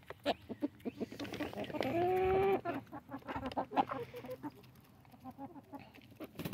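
Chickens pecking sunflower seeds from an open hand: a quick, irregular patter of beak clicks. A hen gives one drawn-out call about two seconds in, along with soft clucking.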